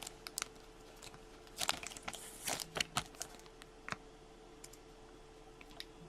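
Trading cards and their plastic sleeves being handled on a table: scattered light clicks and crinkling, busiest between about one and a half and three seconds in, over a faint steady hum.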